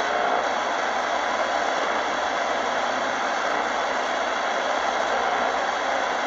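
Tecsun PL-990x shortwave receiver's speaker giving steady static hiss while being tuned up through the empty stretch of the 11-meter CB band.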